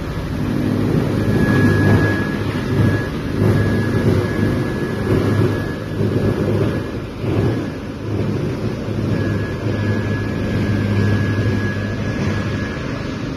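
Large industrial wood chipper running with a steady low hum, its loudness swelling unevenly again and again.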